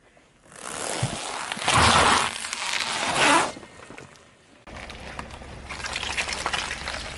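A car tyre rolling onto a soccer ball and squeezing it against asphalt, a loud noisy squeeze in two swells about a second and a half apart. Then a tyre slowly pressing down on a black plastic object, with a steady fine crackling over a low hum.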